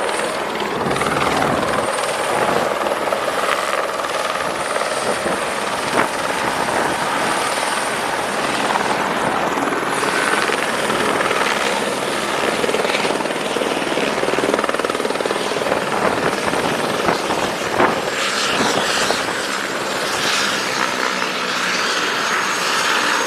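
Helicopter running close by: a loud, steady rotor and engine noise with a faint high whine.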